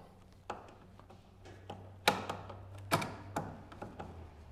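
Hand screwdriver tightening a bolt on a plastic kayak mount: a handful of irregular clicks and taps of the tool and hardware, the loudest about two and three seconds in.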